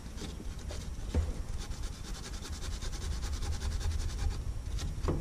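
Abrasive scouring pad scrubbed rapidly back and forth on the metal choke housing of a Weber 32/36 carburetor, scratching. The surface is being cleaned bare because the electric choke grounds through its base.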